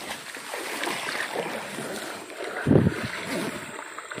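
Rustling and handling noise close to the microphone, with one loud thump about two-thirds of the way through, over wind on the microphone and flowing river water.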